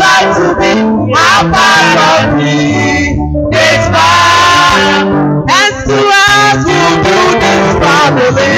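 A song: voices singing a melody over instrumental accompaniment with a steady bass line.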